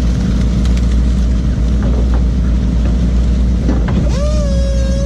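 A boat engine running steadily with a low drone. About four seconds in, a held high tone with overtones starts with a short upward slide and stays on one slightly wavering pitch.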